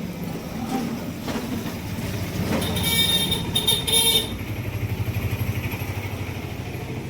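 An engine running steadily, with a loud high-pitched tone sounding briefly about three seconds in.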